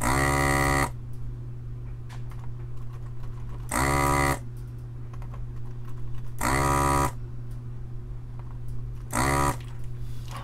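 Electric desoldering gun's vacuum pump buzzing in four short bursts, each under a second, sucking molten solder out of through-hole pads so an old pin header can come free.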